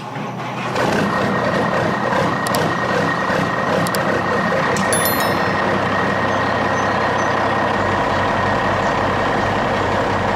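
Truck engine running steadily, with a few sharp clicks between about two and five seconds in.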